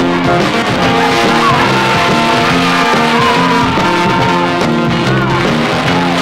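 1960s garage rock band playing: bass and guitar notes in a steady rhythm, with a long held note that wavers in pitch above them from about two to five seconds in.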